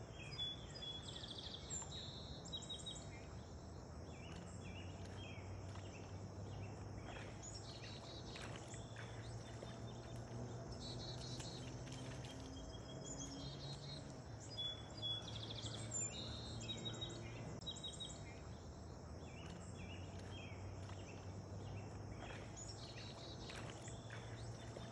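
Outdoor ambience: birds chirping in short repeated calls over a steady high insect drone and a faint low hum.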